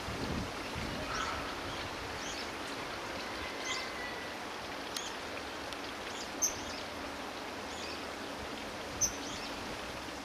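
Short, high-pitched bird chirps scattered over a steady outdoor background hiss, with two sharper, louder chirps in the second half.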